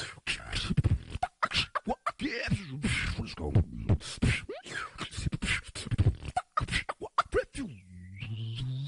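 Human beatboxing: fast kick, snare and click sounds mixed with quick sweeping vocal imitations of turntable scratches, ending in a held low note near the end.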